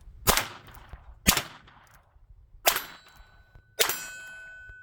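Four shots from a Heritage Rough Rider .22 LR single-action revolver, a second or more apart, emptying the cylinder. The last shot is followed by a lingering ring.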